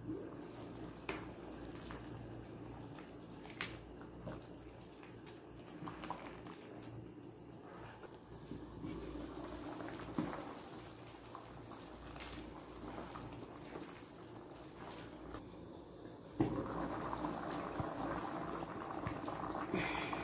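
A pot of macaroni in salted water boiling on a gas stove: faint bubbling with a few light clicks as it is stirred, growing louder and fuller about three-quarters of the way through.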